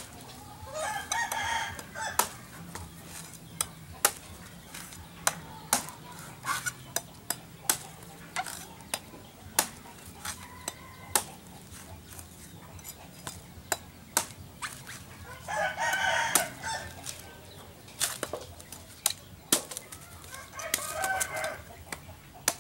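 Machete chopping into a young green coconut's husk on a wooden block, sharp knocks at irregular intervals as the top is shaved down. A rooster crows three times: near the start, about two-thirds through and near the end.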